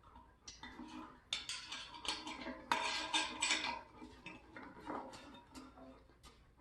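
Small hard metal and glass parts clinking and rattling as they are handled, busiest and loudest in the middle, then a few lighter clicks.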